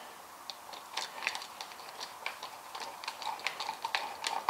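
Faint, irregular small metallic clicks and scrapes of a screwdriver turning a terminal screw on an electrical receptacle, tightening the hot wire under it.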